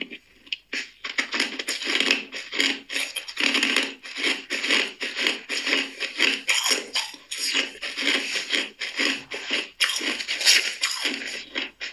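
Ice cubes being crunched and chewed between the teeth: rapid, irregular crunches, many a second.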